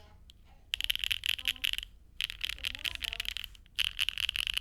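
Typing on a Neo80 mechanical keyboard fitted with HMX Macchiato switches, a carbon-fibre plate, no case foam and JTK keycaps. The keystrokes come in three quick bursts of about a second each, with short pauses between them.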